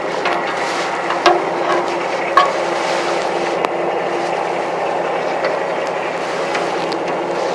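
Small tractor's engine running steadily, with two sharp metallic knocks in the first few seconds.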